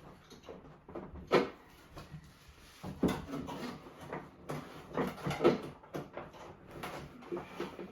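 Coffee machine parts and packaging being handled during unboxing: plastic and cardboard rustling, with several sharp knocks as pieces are set down and moved.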